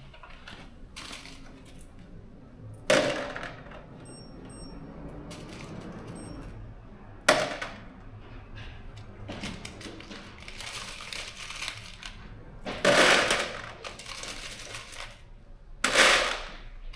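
Metal bolts clattering as handfuls are dropped into a bolt kit box, in four loud bursts with quieter rattling and handling between them.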